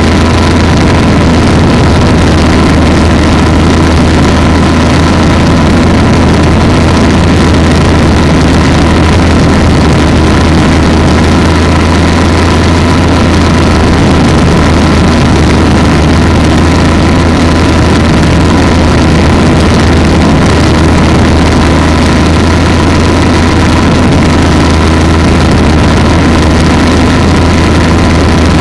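Polini 190 single-cylinder two-stroke engine of an ultralight trike running steadily at constant speed, loud and unchanging.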